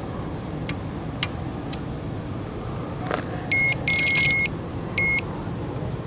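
Electronic carp bite alarm beeping three times: a short beep, a longer wavering run of beeps, then a short beep, signalling line movement over the alarm. A few faint clicks come before it.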